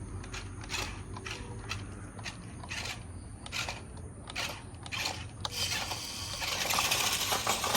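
Small RC rock crawler driving over rough ground: its electric motor and gears run under irregular clicks and scrapes from the tyres and chassis. A louder hissing rush builds about five and a half seconds in.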